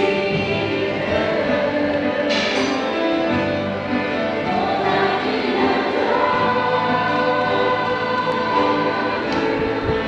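A choir singing a Christian worship song with orchestral accompaniment.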